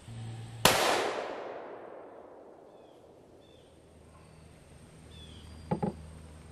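A single rifle shot from a 6.5 Creedmoor bolt-action Ruger American Predator, a sharp crack that echoes away over about two seconds. Faint bird chirps follow, and two quick clicks come near the end.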